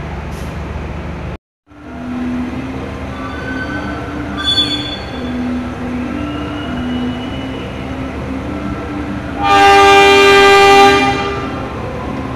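A train horn sounds one loud blast of about a second and a half near the end, over a steady low hum at the station. A short high toot comes about four and a half seconds in, and a low rumble near the start is cut off by a brief gap.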